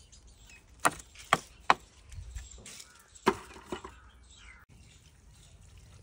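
Knife chopping on a wooden cutting board: about five sharp, separate chops, three close together in the first two seconds and two more after a short pause.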